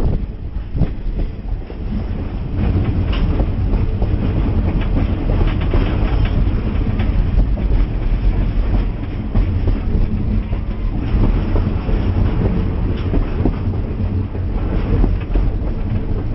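Passenger train rolling along the track, heard from aboard: a steady heavy rumble with the clickety-clack of wheels over the rails.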